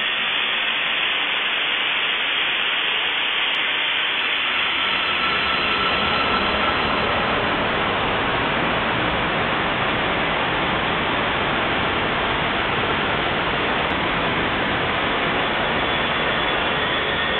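Dial-up 56k modem handshake slowed down many times over with PaulStretch, its noisy data stretch drawn out into a steady hiss.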